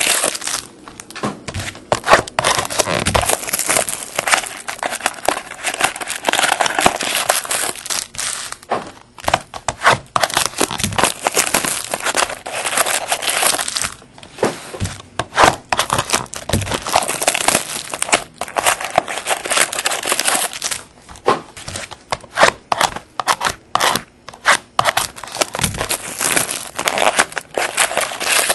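Plastic trading-card pack wrappers crinkling and tearing as packs are opened by hand. Long crinkly runs with short pauses, turning choppier in the second half.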